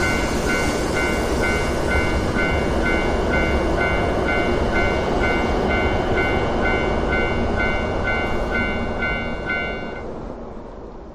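Japanese level-crossing alarm ringing in a steady beat of about two tones a second over the steady rush of a passing high-speed train. The alarm stops about ten seconds in and the train noise fades away.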